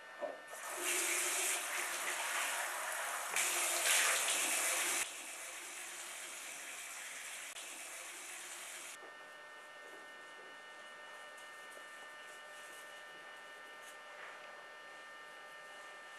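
Bathroom sink tap turned on and running, the water hiss loudest for about five seconds, then running lower and stopping about nine seconds in. A steady electrical hum sits underneath.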